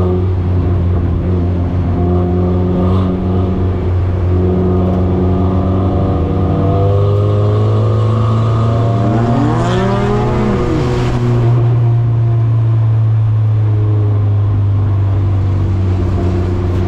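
Four-cylinder engine of a front-wheel-drive Chevy Cobalt SS dirt track race car running steadily, heard loud from inside the cockpit. About nine seconds in, a pitch rises and then falls over a couple of seconds.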